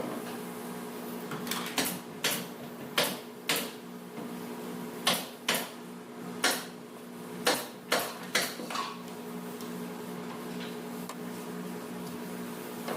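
About a dozen sharp knocks at irregular intervals, over a steady low machine hum; the knocks stop for the last few seconds.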